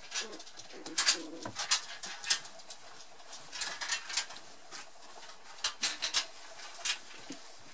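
Very young poodle puppies play-fighting: soft puppy grunts and cooing squeaks mixed with short scratchy clicks, coming in scattered clusters.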